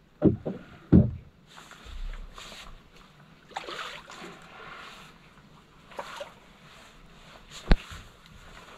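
Knocks and thumps of someone moving about on a small boat, three loud ones close together at the start and one sharp knock near the end, with rustling in between.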